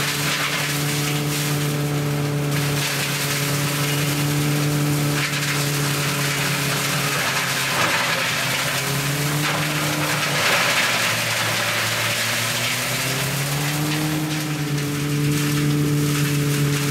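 Tractor-driven branch shredder working through pruned lemon-tree branches: the engine's steady drone sags in pitch under load from about eight seconds in, while the shredding crunch of the wood grows, then climbs back up at about fourteen seconds.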